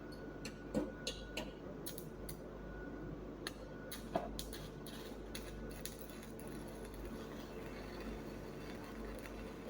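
Steel workpieces being handled and set in place for a fillet weld: a scattered series of light metallic clicks and clinks over a steady background hum, most of them in the first six seconds.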